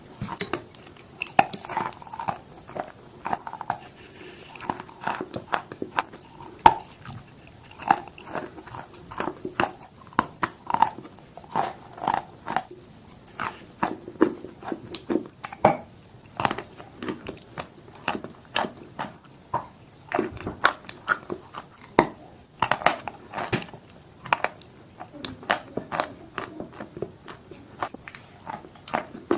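Close-up biting and chewing of chalk: dry crunches and crackles in quick, irregular succession.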